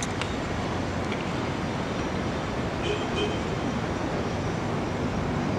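Steady outdoor background noise, an even hiss and rumble with no clear single source, and a faint brief high tone about three seconds in.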